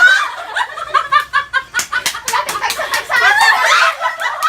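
People laughing, in quick repeated ha-ha pulses, with a few voices mixed in.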